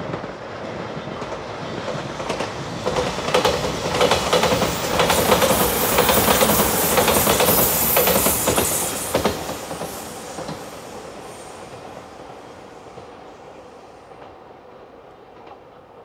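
Five-car JR Shikoku 8000 series limited express electric train passing, its wheels clicking over the rail joints. It builds up at first, is loudest through the middle, then fades away over the second half.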